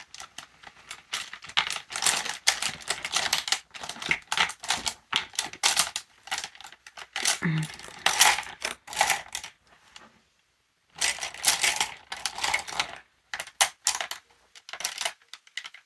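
Rummaging through a collection of makeup brushes and cosmetics: quick runs of clicks and clatters as items knock together, pausing briefly about ten seconds in before resuming, then a few scattered ticks.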